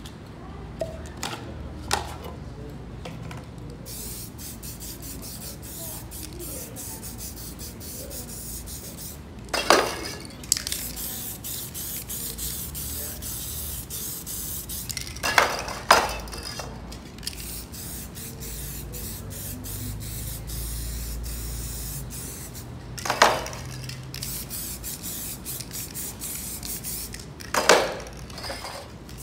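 Aerosol spray-paint cans hissing in long, nearly continuous sprays, with a few short breaks. Five short, sharp knocks stand out as the loudest sounds.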